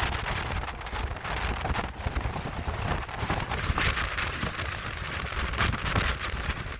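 Wind buffeting the microphone over a steady, crackling rain-like hiss.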